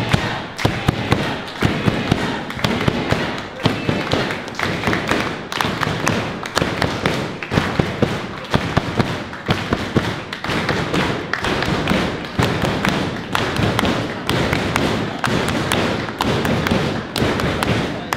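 A crowd clapping and slapping the ring apron: a dense, irregular run of sharp slaps and thuds, with voices underneath.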